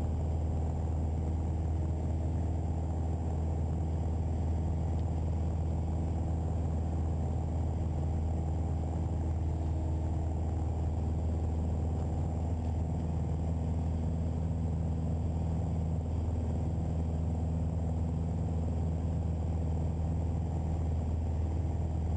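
Piper PA-28-181 Archer's four-cylinder Lycoming O-360 engine and propeller at steady cruise power, heard inside the cabin as an even, muffled drone.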